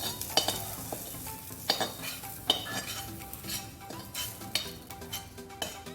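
Chopped onion and garlic sizzling in hot oil in a kadai while a spatula stirs them, clinking and scraping against the pan several times.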